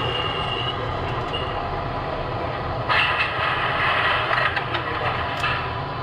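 MTH O-scale model subway train running on three-rail track: a steady rumble, with a louder, brighter rattling noise starting about three seconds in.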